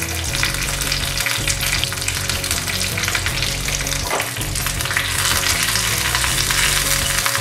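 Curry leaves and dried red chillies sizzling and crackling steadily in hot oil in a small pan: a tempering being fried.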